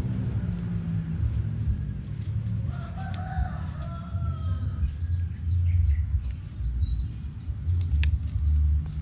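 A rooster crowing about three seconds in, with small birds chirping over and over and a rising higher bird call near the end, all over a steady low rumble; a single sharp click near the end.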